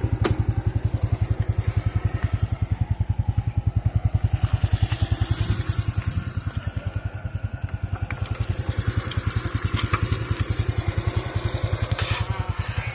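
Honda Pop 110i motorcycle's single-cylinder four-stroke engine running steadily, a rapid, even train of exhaust beats that neither rises nor falls.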